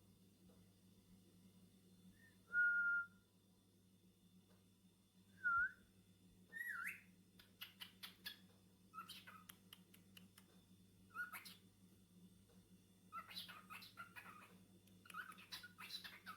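Cockatiel whistling: one held whistle, then a short dipping one and a rising one, followed by quick chirping chatter in repeated bursts.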